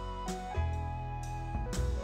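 Instrumental background music: held melody notes changing pitch every half second or so, with light percussion hits.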